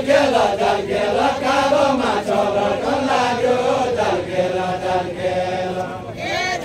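A group of men singing a Deuda folk verse together without instruments, in a chant-like line of long, drawn-out notes.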